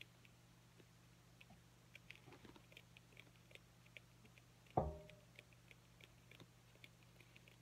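Faint scattered clicks and taps from small tools being handled during phone glass repair work. A little under five seconds in there is one louder knock with a short ring, all over a low steady hum.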